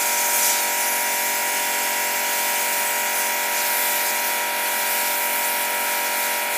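Kranzle 10/122 electric pressure washer running steadily, its motor and pump giving a constant hum with several fixed tones, with the hiss of the snow-foam lance spraying foam on top.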